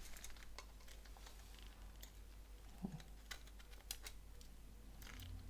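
Faint, scattered clicks and taps of small plastic phone parts being handled, about half a dozen light ticks spread over a few seconds.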